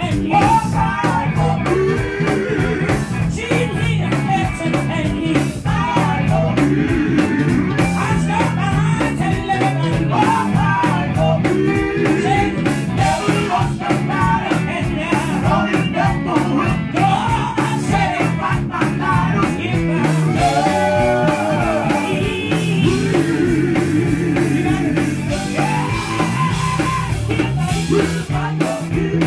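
Live gospel music: singers on handheld microphones, amplified through a PA, with a band playing a steady beat underneath.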